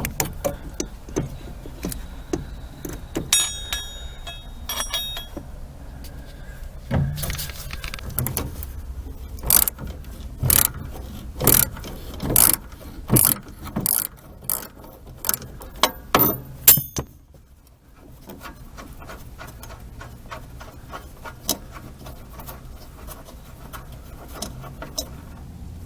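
Metal hand tool working the nut off the brake pedal push rod bolt: ratcheting and clicking of metal on metal, with loud clicks roughly once a second in the middle and fainter rapid clicking near the end as the nut comes off.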